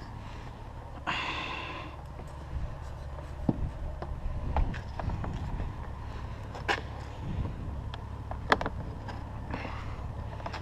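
Wind buffeting the microphone with a steady low rumble, over scattered sharp clicks and knocks of handling, and a brief higher-pitched sound about a second in.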